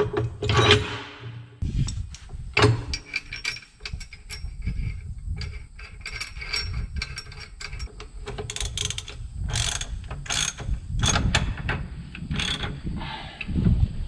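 Metal clanks, clicks and scrapes from work on a Kubota tractor's drawbar as it is slid forward, with a run of sharper metal knocks in the second half.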